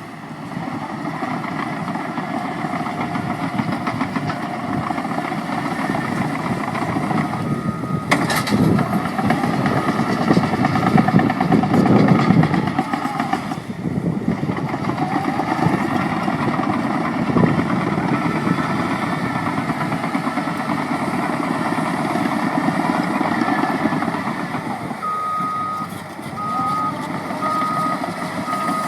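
Caterpillar 963D track loader with its diesel engine running, working harder and louder for a few seconds from about eight seconds in, with a sharp knock at the start of that stretch. Near the end its reversing alarm beeps at an even pace.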